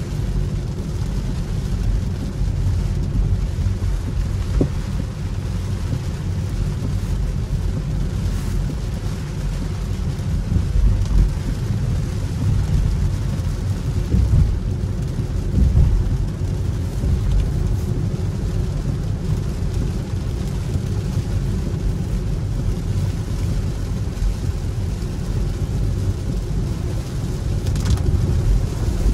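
Cabin noise of a battery-electric Hyundai Ioniq 5 driving on a wet road in heavy rain: a steady low rumble of tyres on the wet surface, with a fainter hiss of rain and spray.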